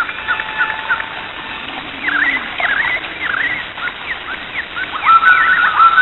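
Songbirds singing in quick chirps and slurred whistles over a steady rush of falling water. Near the end a bird repeats one clear whistled note over and over.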